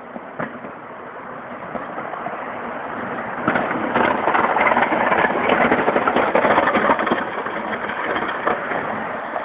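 Honda Civic pushing snow with a homemade plow: the car's engine running under a rough, rushing noise that swells to its loudest about three and a half seconds in, carries a few sharp clicks, and eases off near the end.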